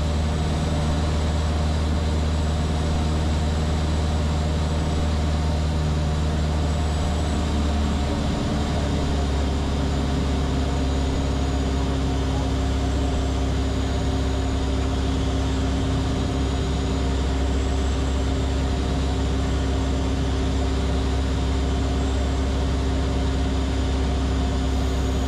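Van's RV-7A single piston engine and propeller droning steadily in flight, heard inside the cockpit. The pitch of the drone shifts about eight seconds in.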